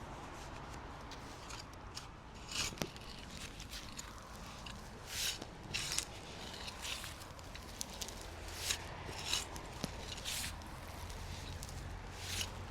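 Spade digging into allotment soil: about nine short scraping strokes at irregular intervals.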